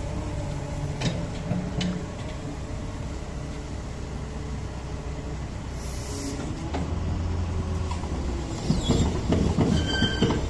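CAT 306 mini excavator's diesel engine running steadily. Metallic clanking and squealing from the machine pick up about eight and a half seconds in.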